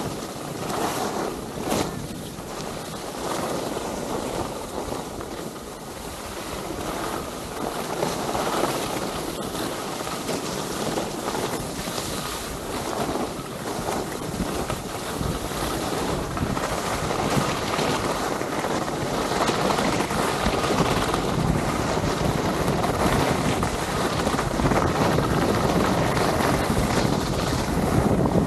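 Wind rushing over an action camera's microphone, mixed with skis hissing and scraping over packed snow on a downhill run. The rush grows steadily louder as the skier picks up speed.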